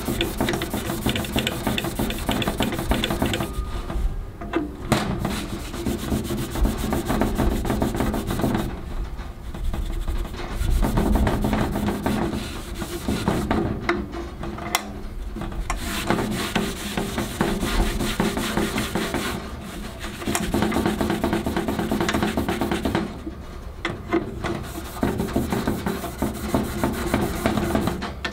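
Red Scotch-Brite abrasive pad (3M 7447) scrubbed rapidly back and forth over a stainless steel grill body, a dense rasping rub that brightens the metal and lays down a grain finish. The scrubbing stops briefly every few seconds.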